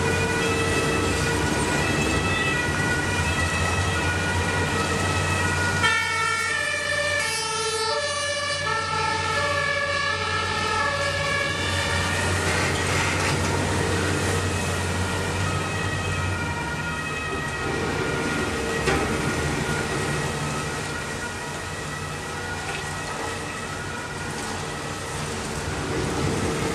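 Demolition excavators working, a CAT 374F long-front among them: a steady diesel and hydraulic drone with a thin whine running through it. From about six seconds in, a siren alternating between two pitches sounds over the machines for several seconds.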